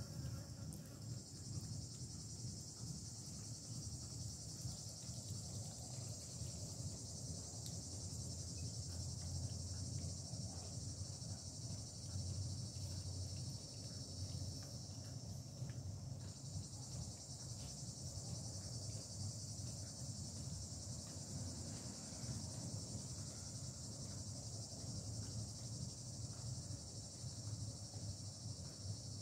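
Steady high-pitched insect chorus, an even continuous trilling drone, over a low background rumble.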